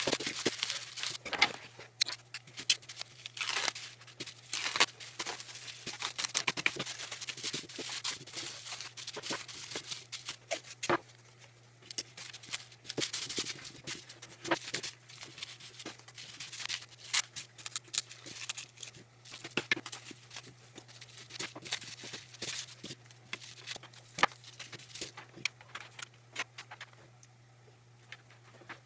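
Tape being pulled off the roll, torn and pressed onto the back of an opened membrane keyboard, in irregular rasps, crinkles and clicks. A faint low hum runs underneath.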